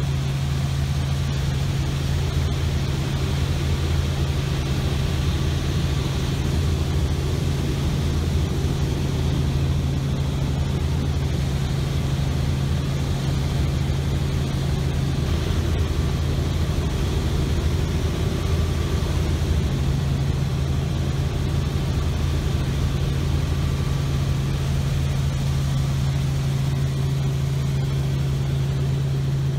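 Helicopter in flight heard from inside the cabin: a steady low drone of engine and rotor.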